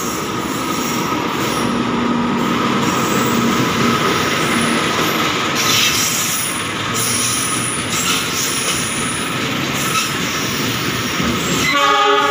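Container freight train passing through a station at speed, its wagons rumbling and rattling over the rails with a steady high wheel squeal. A short horn blast sounds near the end.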